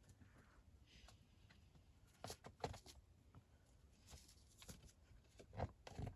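Near silence broken by a handful of faint taps and scuffs, a boulderer's hands and climbing shoes on rock, several together just past the middle and two more near the end.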